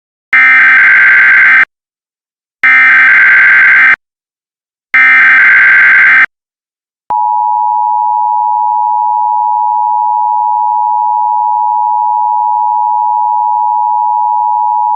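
Emergency Alert System header: three harsh, screeching digital data bursts, each just over a second long, then the EAS two-tone attention signal, a steady dual tone that starts about seven seconds in and holds on.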